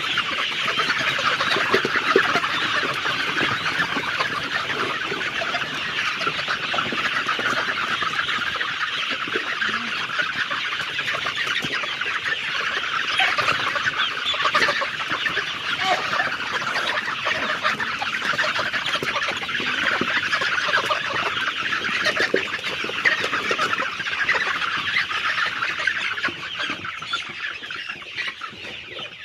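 A large flock of chickens on a poultry farm, many birds calling at once in a dense, continuous clamour that eases off near the end.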